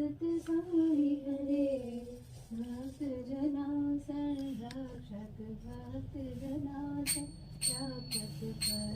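A female voice singing a devotional aarti song in long, held notes. From about seven seconds in, a small hand bell is rung repeatedly, about three strokes a second, as is done during aarti.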